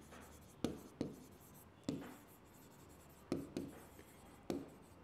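Pen writing on an interactive whiteboard: a handful of faint, sharp taps and short scrapes at uneven intervals as the pen touches down and forms each letter.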